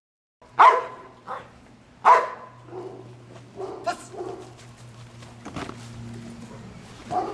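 A trained protection dog barking: two loud barks, about half a second and two seconds in, then fainter barks and yelps, over a steady low hum.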